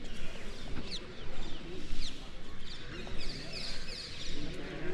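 Birds calling outdoors, a run of short, high, downward-sliding chirps that crowd together around the middle, over a low murmur of people's voices.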